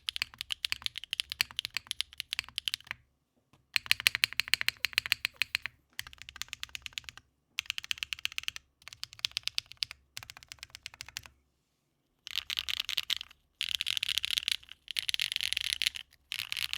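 Typing on a custom Manta mechanical keyboard with HMX Macchiato switches, a carbon-fibre plate and GMK Foundation keycaps. Fast runs of keystrokes break off in short pauses, with a longer pause about eleven seconds in, and the runs after it are denser.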